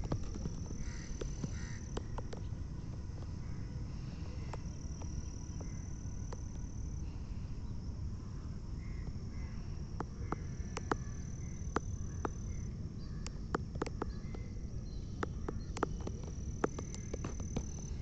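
An insect trilling: a high, steady tone held for a few seconds at a time, breaking off and starting again about four times. Underneath is a low rumble with scattered sharp clicks.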